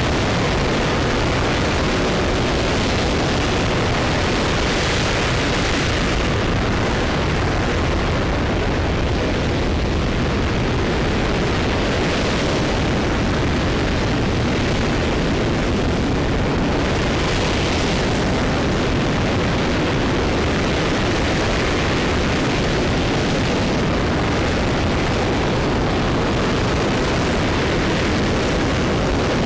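RS-25 liquid-hydrogen/liquid-oxygen rocket engine firing on its test stand during a hot-fire test: a steady, loud rushing noise whose hiss swells and eases every few seconds.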